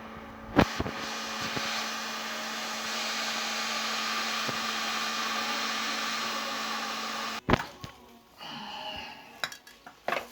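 Heat gun blowing hot air onto a seized nut to free it, a steady rushing hiss with a faint hum. It switches on with a click about half a second in and cuts off abruptly with a click after about seven seconds.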